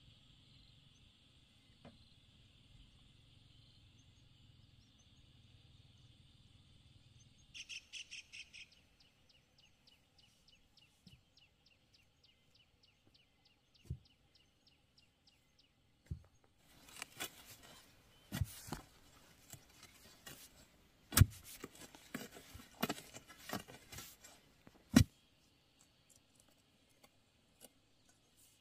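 A hoe chopping into soil: a run of sharp strikes lasting about eight seconds in the second half, two of them much louder than the rest. Before it, a steady high buzz and a bird's quick chirping trill.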